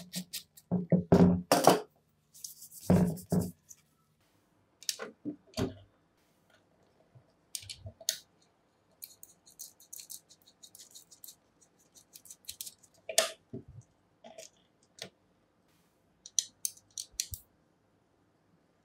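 Scattered clicks and knocks of hard tool parts being handled, close together and loudest in the first few seconds, then sparse and faint.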